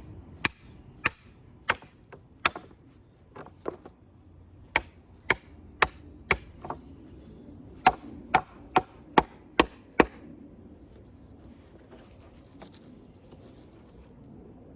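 Hammer blows driving a curved rebar J-hook stake into the ground: sharp strikes about two a second in three short runs, stopping about ten seconds in.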